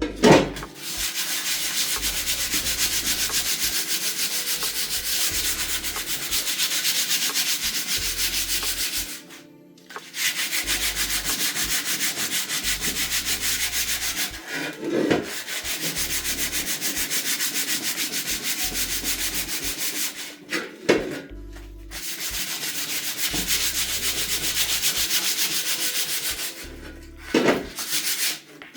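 Abrasive sanding of a cast-iron cauldron lid's surface, preparing it for seasoning: a steady, scratchy rasp with a fast, even pulse. It comes in three long passes, broken by short pauses about 9 s and 20 s in.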